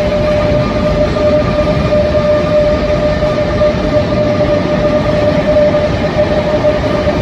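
Renfe Rodalies electric commuter train moving slowly past along an underground station platform: a steady rumble of the wheels and cars with a high, steady whine over it, echoing in the enclosed station.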